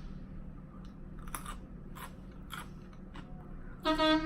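Close-miked crunchy chewing of a chicken lettuce wrap, crisp crunches about twice a second. Near the end comes a short hummed voice sound, the loudest moment.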